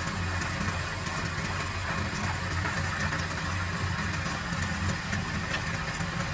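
Wood lathe running steadily with a low, even hum while the small turned vase spins on it.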